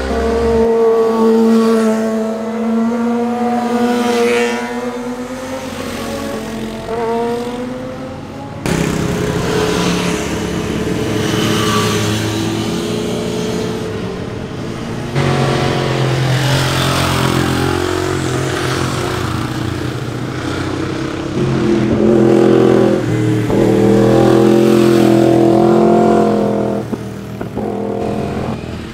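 Sport motorcycles riding past at speed, their engines revving up and down in pitch through the gears. The sound changes abruptly twice as one pass gives way to another.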